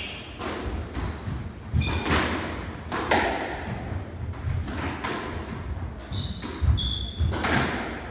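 Squash rally: the rubber ball cracking off rackets and the court walls about every second or so, with footsteps and short high shoe squeaks on the wooden court floor.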